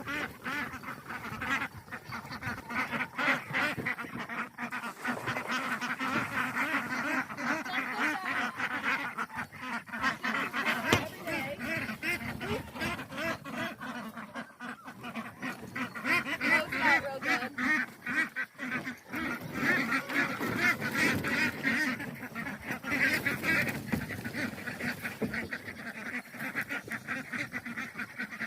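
A flock of domestic ducks quacking and honking continually, many calls overlapping.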